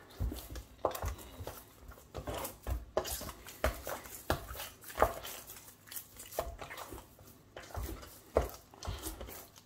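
Semolina-and-flour pizza dough being kneaded by hand in a wooden bowl: irregular soft thumps and knocks as the palms press the dough down and fold it over.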